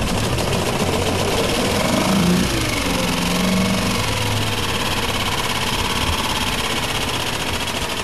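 Tohatsu MFS3.5A four-stroke outboard motor running steadily a little above idle.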